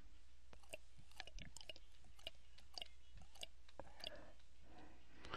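Faint, irregular small clicks and ticks, a couple of dozen scattered through a few seconds, over a low steady hum.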